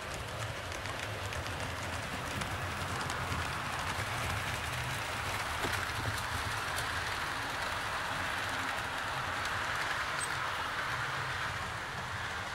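HO scale model train running along the track, its wheels rolling on the rails with a steady rushing hiss and faint clicks. It grows louder toward the middle as the carriages pass close, then eases near the end.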